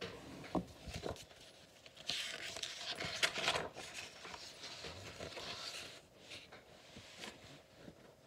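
Page of a large picture book being turned by hand: paper rustling and sliding, loudest between about two and six seconds in, with a few light taps as the page is handled.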